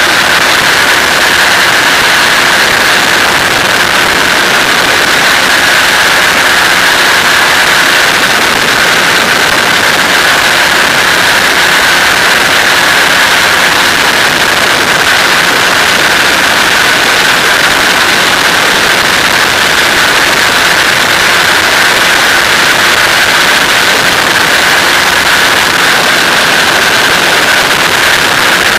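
Flex-wing microlight trike in level cruise: its engine and pusher propeller running steadily at constant power under a loud, unchanging rush of wind over the microphone.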